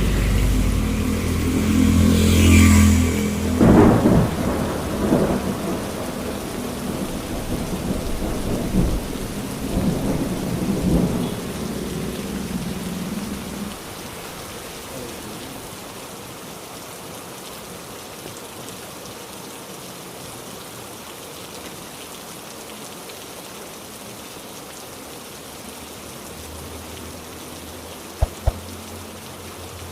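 A thunderclap about three seconds in, followed by deep rolling thunder that fades away over the next ten seconds or so, over heavy rain; after that, steady heavy rain alone.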